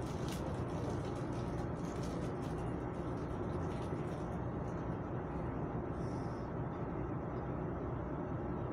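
Steady low noise inside a Chu-Kuang express passenger coach running between stations, even and unbroken.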